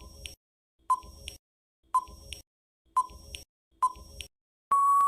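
Countdown timer sound effect: five short beeps about a second apart, then a longer steady tone starting near the end that marks time up.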